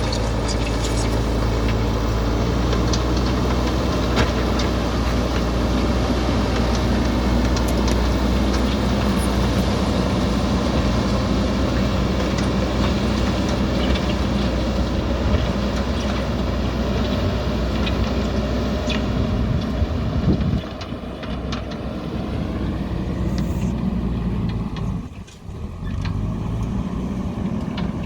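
JCB backhoe loader's diesel engine running steadily under work, with scattered clanks. The engine eases off about twenty seconds in, dips briefly a few seconds later, then picks up again.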